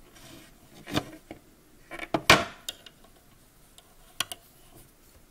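Knocks and clicks from working a plastic knitting loom with a loom hook: one knock about a second in, a louder cluster about two seconds in, and two short clicks just after four seconds.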